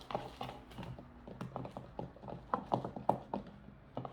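A sticky homemade slime mixture being stirred and squished, giving irregular small clicking squelches several times a second. The mixture has not yet set into slime.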